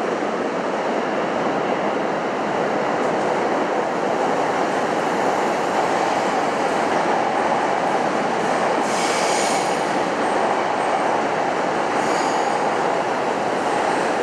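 Electric commuter train running along an underground station platform: a steady, loud rumble of wheels and motors. Brief high-pitched wheel squeals come about two-thirds of the way through and again, shorter, near the end.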